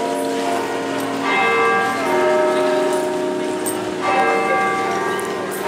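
Bells ringing: a few bell notes struck a second or two apart, each ringing on and overlapping the next.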